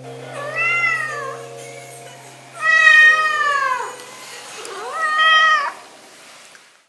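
Scottish Fold cat meowing three times, each call rising then falling in pitch, the middle one the loudest and longest: begging meows for treats.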